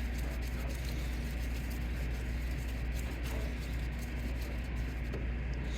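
A steady low hum under a faint, even hiss, with no distinct handling sounds.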